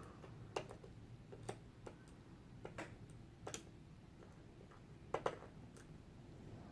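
Light, irregular clicks of small metal lock parts (pin-tumbler pins and springs) being handled as a Mul-T-Lock Jr. core is taken apart, with a quick double click about five seconds in the loudest.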